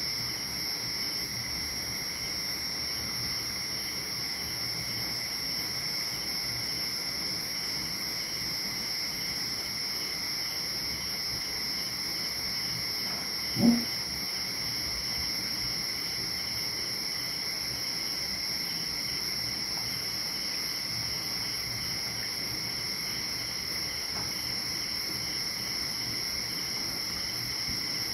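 Steady high-pitched chorus of night insects, crickets chirring without a break, with a single dull thump about halfway through.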